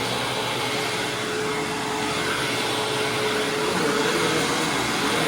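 Hoover WindTunnel Supreme upright vacuum cleaner running over carpet, a steady motor whine over a constant rush of air.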